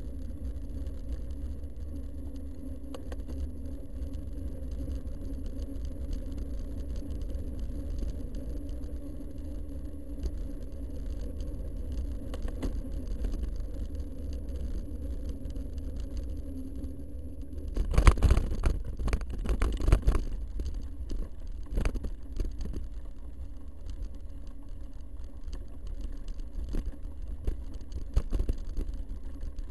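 Steady low rumble of a vehicle-mounted action camera travelling along a dirt forest track, with a faint steady high whine. About eighteen seconds in comes a two-second cluster of sharp knocks and rattles, with a few more scattered after.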